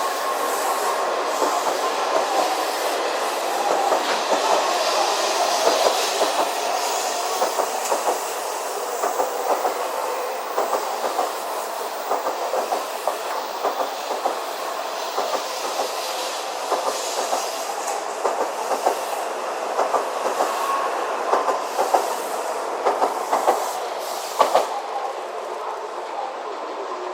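Shinkansen bullet train pulling out of the station: a steady rushing noise with wheels clicking over rail joints and points throughout.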